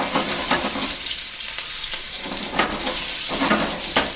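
Skirt steak sizzling in a hot oiled pan, just laid in: a steady frying hiss with a few brief louder spits.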